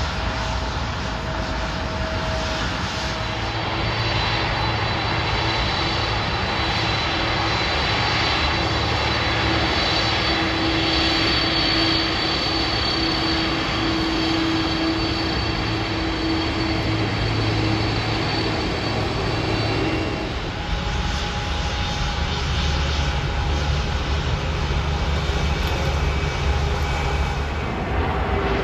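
Jet airliner engines running at low taxi thrust: a steady rumble with a high whine held through the middle. About twenty seconds in, the sound shifts to a different jet's deeper rumble.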